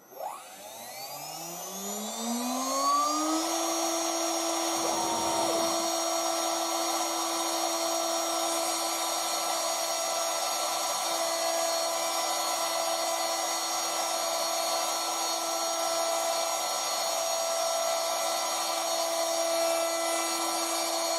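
Air-cooled CNC router spindle spinning up with a rising whine over the first three seconds or so, then running at a steady high whine over a hiss of cooling air. Its 1 mm end mill is milling a carbon fibre plate dry.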